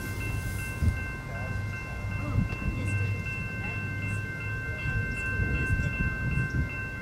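Railroad grade-crossing warning bells ringing in a rapid, even dinging, the signal that a train is approaching. A low rumble runs underneath.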